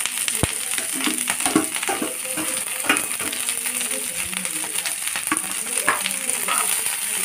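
Chopped cabbage and carrots sizzling in hot oil in a non-stick frying pan, a steady hiss throughout. A sharp click about half a second in, from the knife scraping vegetables into the pan, with a few lighter ticks after.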